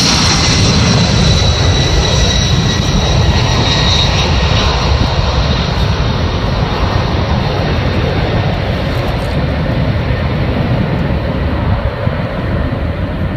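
Jet engine noise of an RAF C-17 Globemaster III's four turbofans at take-off thrust as it climbs away. A high whine over the noise fades out over the first five seconds, and the whole sound slowly dies away.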